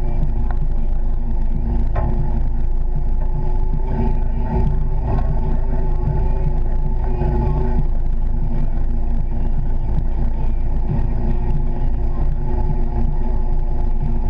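Honda Pioneer 700-4 side-by-side's single-cylinder engine and drivetrain running steadily while driving, heard from inside the cab as a loud, even rumble.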